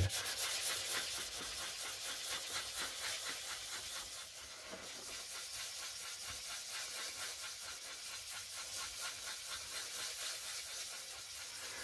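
800-grit wet-and-dry sandpaper rubbed by hand with soapy water over the primed polyester fibreglass cowl of a model aircraft: a steady hiss of quick back-and-forth strokes. It is flatting the primer and red spot putty in prep for painting.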